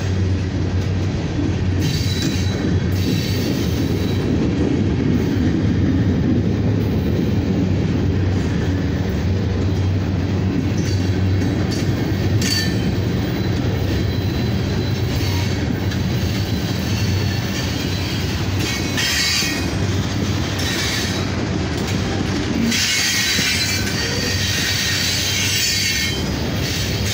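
Freight train of covered steel-coil cars rolling past at close range: a steady rumble of wheels on the rails, with high wheel squeal that comes and goes, strongest near the start and again near the end.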